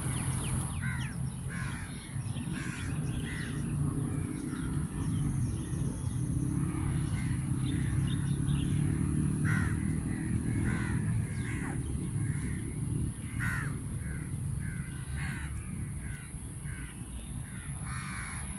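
Crows cawing again and again, short calls coming several at a time, over a steady low rumble.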